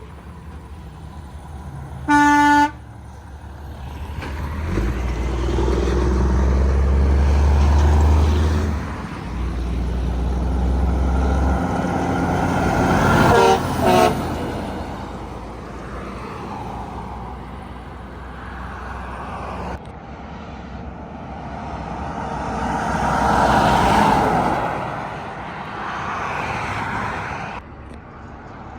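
Road traffic passing, with a heavy truck's deep engine rumble going by. A vehicle horn gives one short blast about two seconds in and two quick toots about halfway through.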